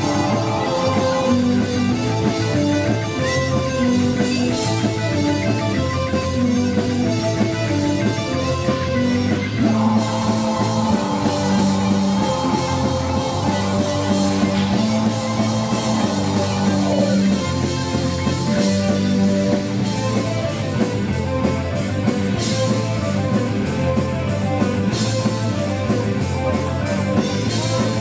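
A live melodic death metal band playing: distorted electric guitars, bass, fast drums and a keyboard melody, with a long held note in the middle.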